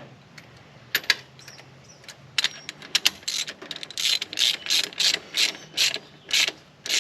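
Hand ratchet clicking as it tightens a new air charge temperature sensor into the engine's intake: a few scattered clicks at first, then a steady run of strokes about two a second.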